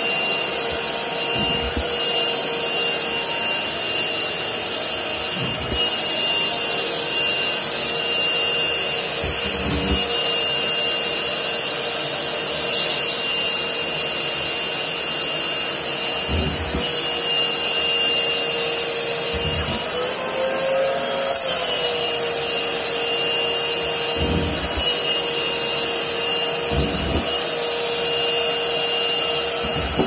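Shop vac running steadily with its narrow hose sucking at hanging laundry, a constant whine over airflow hiss. Low thumps come every few seconds, and the motor's pitch rises briefly about twenty seconds in, followed by a click.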